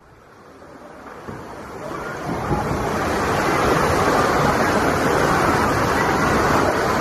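Kayak paddles splashing and churning the water of an indoor pool hall during a canoe polo game, a steady dense wash of water noise. It fades in over the first three seconds and then holds steady.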